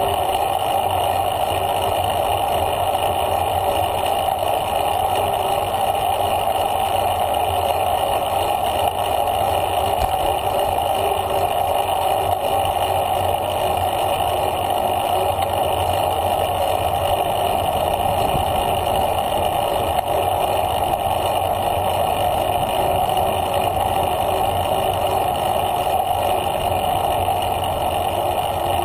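Steady wind and tyre noise from a bicycle rolling along a paved trail at about 11 mph, picked up by a bike-mounted Garmin VIRB action camera; an even rush with no separate events.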